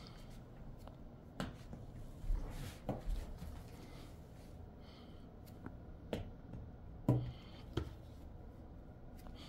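Quiet small room with a handful of light, scattered clicks and taps, the loudest about seven seconds in.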